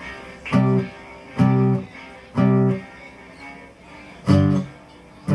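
Guitar strumming short, sharp chord stabs about once a second, with one beat left out in the middle: a stop-time blues figure between sung lines.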